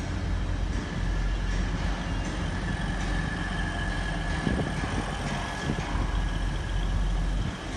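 Grand Central Class 180 diesel multiple unit moving slowly past, its underfloor diesel engines running with a steady low rumble and a steady high whine. A couple of faint knocks come about halfway through.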